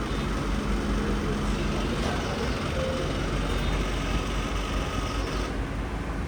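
Tata Altroz's 1.2-litre three-cylinder petrol engine running with an odd extra noise from the timing-belt area, which people put down to a worn bearing by the belt, the timing belt's auto tensioner pulley.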